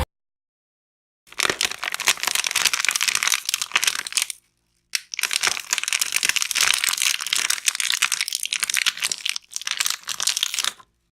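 Plastic bottle being squeezed, its walls crackling and crinkling in three long runs of dense crackle, with short breaks between them.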